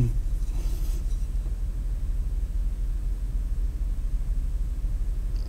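A steady low rumble, with no distinct events over it.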